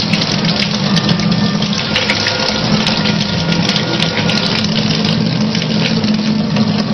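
A thin stream of tap water running steadily into a sink, a continuous hiss.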